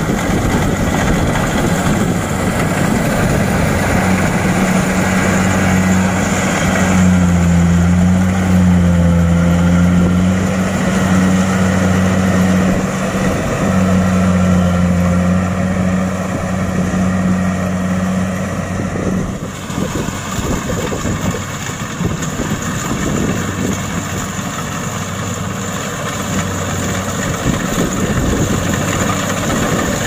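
Kubota DC-70 PLUS rice combine harvester running as it cuts through the crop: a steady machine hum with a strong low engine drone. The drone drops away about two-thirds of the way through, leaving a rougher, noisier running sound.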